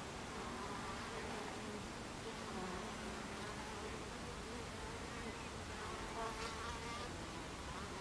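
Buckfast honeybees buzzing as they fly about the hive entrance, the buzz wavering in pitch as bees come and go. One bee passes close and buzzes louder about six seconds in.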